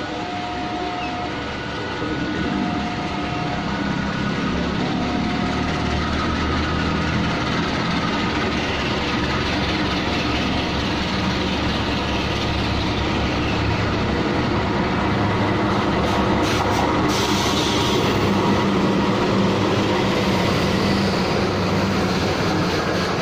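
Passenger train arriving at a station: the locomotive horn sounds three short blasts, then the rumble of the train grows steadily louder as it draws in and runs past along the platform.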